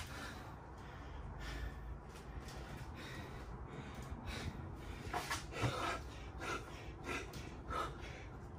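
A man breathing hard from the exertion of burpees, with a run of quick, noisy gasping breaths from about five seconds in.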